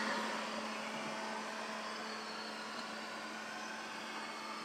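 LeFant M500 robot vacuum running: a steady motor and suction hum that grows slightly fainter over the first two seconds as the robot moves away.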